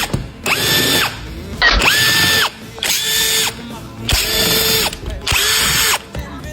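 Cordless power tool run in about five short bursts. Each time its motor whines up to speed, holds briefly, and winds down, as fasteners are driven during the repair.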